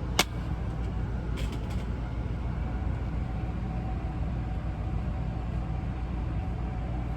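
Steady low mechanical rumble, like a running motor, with a sharp click just after the start and a few softer clicks about a second and a half in.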